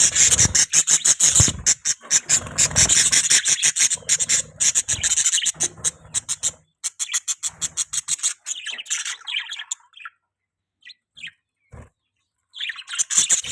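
Budgerigars chirping in a fast, dense chatter of short high chirps. The chirping thins out after about six seconds, stops for a couple of seconds with only a few faint clicks, and picks up again near the end.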